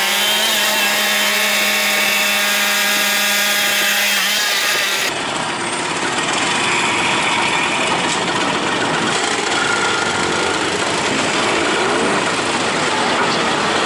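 Moped engine running at a steady high speed with a buzzing, even pitch. About five seconds in the sound cuts to another recording, mostly a steady rushing noise with faint engine sound beneath it.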